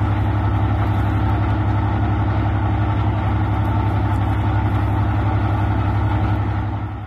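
A Class 55 Deltic diesel-electric locomotive idling steadily, its Napier Deltic two-stroke opposed-piston diesel engines giving a loud, even, low hum with a fine rapid pulse.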